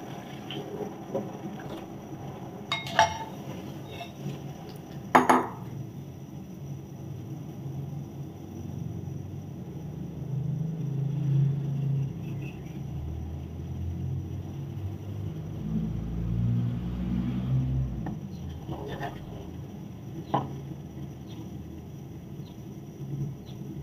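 Spatula stirring a coconut-milk agar mixture in an aluminium wok and knocking against the metal, with sharp clinks about 3 and 5 seconds in and two lighter ones near the end. A low rumble runs in the background through the middle.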